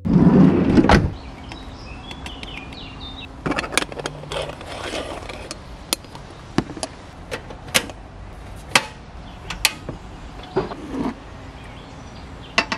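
A van's sliding side door rumbling open during the first second, followed by a run of sharp clicks, taps and knocks of metal as an aluminium stovetop moka pot is filled with ground coffee and set on a portable gas camping stove.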